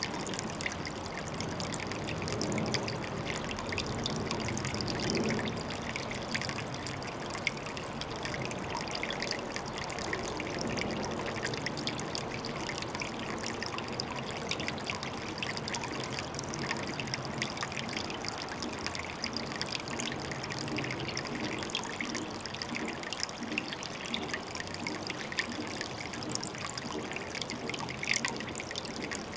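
Water trickling and pouring steadily, with many small splashes.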